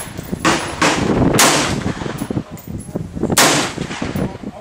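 Colt AR-15 SP1 semi-automatic rifle firing single shots at an outdoor range: several shots, the loudest about a second and a half in and again about two seconds later.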